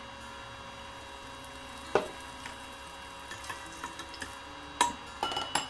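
A metal ladle knocking and clinking against a stainless steel pot of frying oil: one knock about two seconds in, a few light ticks and drips, then a quick run of clinks near the end, over a steady faint hum.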